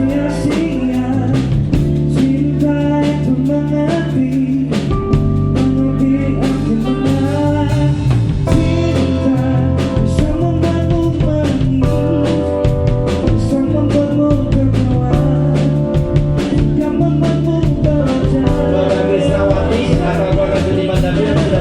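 Live band playing a love song with a steady beat and sustained chords, between sung lines.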